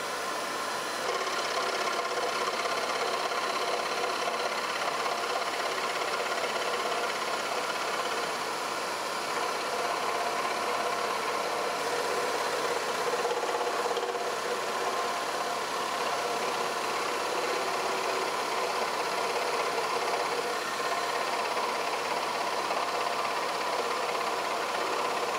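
Axminster Workshop AW405FS scroll saw running steadily, its blade cutting a curved bird-head shape through a block of 17 mm tulipwood.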